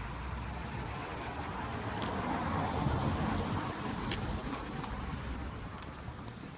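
Street traffic noise: a vehicle passing, its road noise swelling to a peak about three seconds in and then fading.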